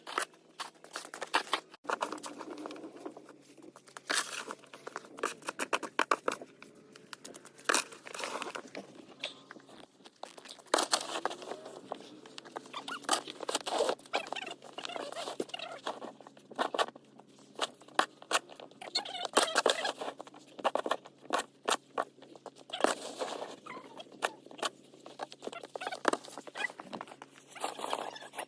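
Snow shovel scraping and crunching through snow in irregular strokes, with louder clusters of scrapes every few seconds.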